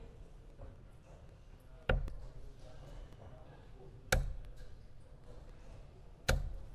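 Three steel-tip darts thrown one after another, each landing in a Winmau Blade 6 bristle dartboard with a sharp thud, about two seconds apart.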